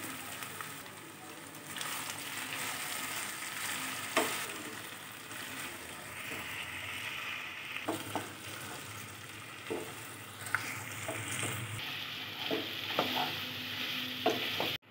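Raw plantain sticks sizzling steadily in hot oil in a nonstick pan, being par-fried to about three-quarters done. A spatula stirs them, giving scattered short knocks and scrapes against the pan, more often in the second half.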